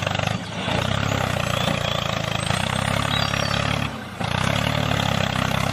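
Tractor engine running steadily with an even chug, dipping briefly about half a second in and again around four seconds in.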